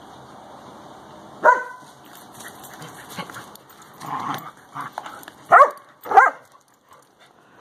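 Dog barking during rough play: one sharp bark about a second and a half in, then two loud barks in quick succession a little past halfway.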